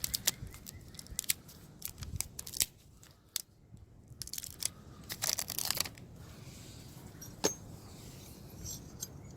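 Tire plug kit parts being handled: a run of small sharp clicks, then a rustling, tearing stretch about five seconds in as a sticky rubber string plug is pulled free and fitted onto the insertion needle, and a single sharp click near the end.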